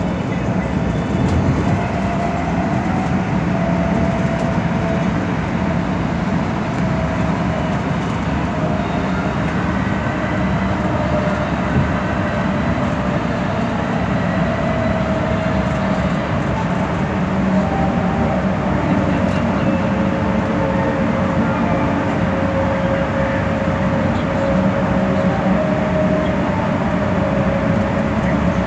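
Steady running noise of a metropolitan express bus at speed, heard from inside: an even drone of engine and road noise with a faint whine that slowly drifts in pitch.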